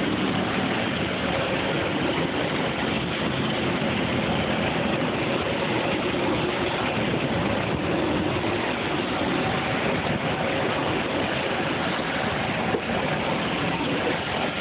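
Locomotive-hauled passenger coaches rolling steadily past close by, giving an unbroken rush of wheel and rail noise. A low hum fades out over the first few seconds.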